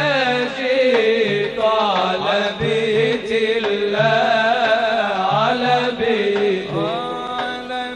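Male munshid singing a long, ornamented wordless melisma of Arabic religious chant, the pitch bending and wavering, over a low repeating accompaniment.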